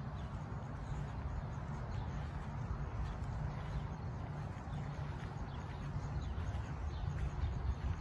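Outdoor ambience: wind rumbling on the microphone, with faint bird chirps now and then.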